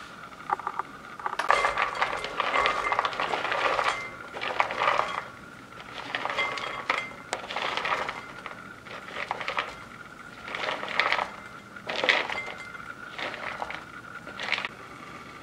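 Shelled walnut kernels clicking and rattling against a dish as they are picked out and dropped in, in bursts of a second or so with short pauses between.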